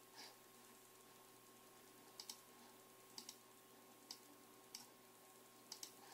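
Faint computer mouse clicks, some single and some in quick pairs like double-clicks, scattered every second or so over a faint steady hum.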